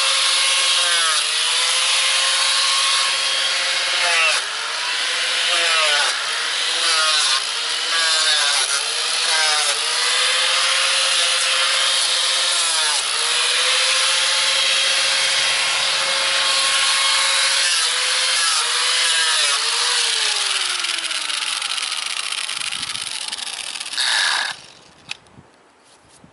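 A 4.5-inch angle grinder fitted with a very coarse 25–30 grit sanding pad, sanding a carved wooden face, with a steady rasping hiss. Its motor whine sags in pitch each time the pad is pressed into the wood and picks back up as the pressure eases. The grinder shuts off near the end.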